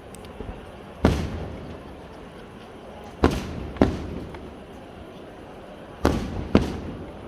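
Fireworks bursting: five sharp bangs, one about a second in, a pair a little after three seconds and another pair around six seconds, each trailing off in a fading echo.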